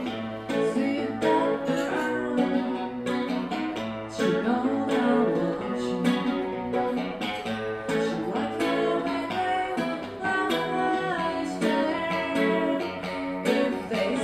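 Live guitar music: a guitar playing continuous picked notes and chords.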